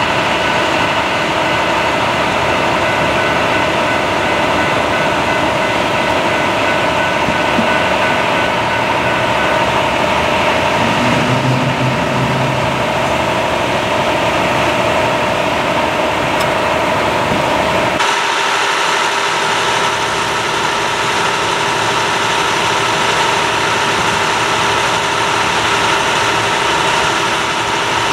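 Vehicle engines idling steadily at close range, a constant hum with a steady whine over it. The mix shifts abruptly about 18 seconds in.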